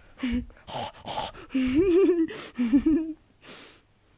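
A person's wordless, sing-song cooing baby talk to a pet cat, wavering up and down in pitch, after a few short breathy puffs of noise.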